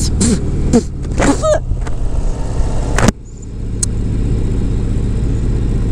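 Motorcycle engine running with wind noise on a helmet microphone, broken by several short breathy bursts in the first second and a half. A sharp click comes about three seconds in, after which the sound drops abruptly and then builds back up.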